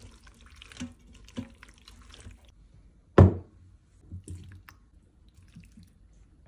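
A spoon stirring pasta in a stainless steel pot, with wet, squelchy scrapes and small clinks. A single loud knock comes a little after three seconds, followed by a few light clinks of a spoon against a ceramic bowl.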